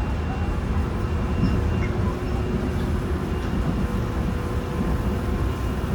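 Seoul Line 4 electric train car with a Toshiba GTO-thyristor VVVF drive running at speed, heard from inside the car: a steady low rumble of wheels on the track with faint steady whining tones from the traction drive.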